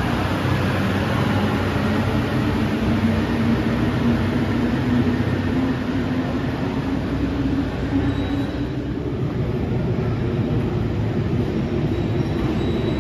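Rubber-tyred automated Paris Métro line 14 train pulling out of the station, its low motor hum rising slightly in pitch as it speeds up and then fading. The rumble grows again near the end.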